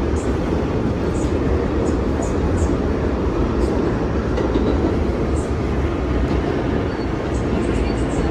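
R160A subway car running between stations, heard from inside the car: a steady rumble of wheels on rails with a few light, irregular ticks.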